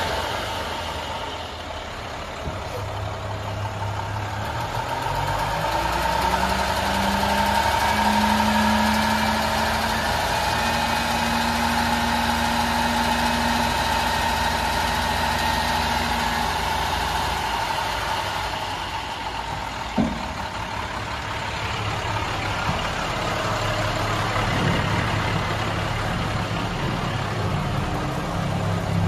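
International 7400 dump truck's MaxxForce diesel running: it idles, speeds up about five seconds in and holds a steady higher note while the hydraulic hoist raises the dump bed, then settles back to idle after about sixteen seconds. A single sharp knock comes about twenty seconds in.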